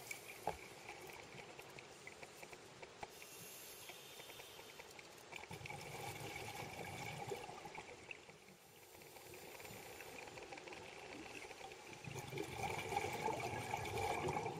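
Underwater recording of a scuba diver's exhaled bubbles, two long bubbling exhalations about five seconds in and again near the end, over a faint steady crackle of the water.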